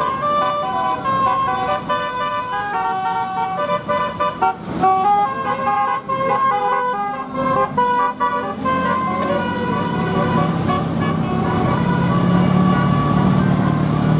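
Basuri telolet multi-tone bus horn playing a quick tune of changing notes. About eight seconds in, the tune fades under the bus's engine running.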